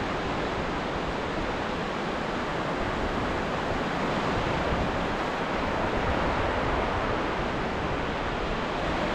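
Indian Ocean surf: a steady, continuous wash of waves, swelling slightly about halfway through.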